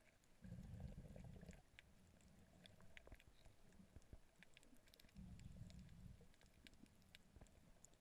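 Faint, muffled underwater sound picked up through a camera's waterproof housing while snorkelling: two low whooshes about a second long, one near the start and one about five seconds in, over faint scattered clicks and crackles.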